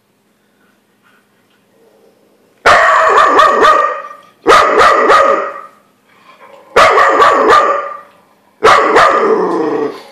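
Dog barking in four loud volleys of about a second each, beginning a few seconds in, each volley made of rapid barks that start suddenly and fade.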